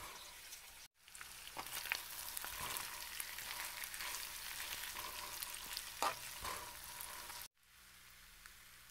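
Boiled potato pieces frying in oil in a nonstick pan as a spatula stirs them through the onion masala: a steady sizzle with scattered scrapes and clicks of the spatula against the pan. The sizzle starts about a second in and cuts off suddenly near the end.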